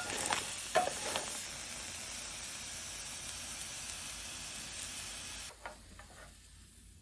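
Chestnuts pan-roasting in a stainless steel frying pan over medium heat: a steady sizzle, with a wooden spatula stirring them and knocking them about in the first second or so. The sizzle drops to a faint hiss about five and a half seconds in.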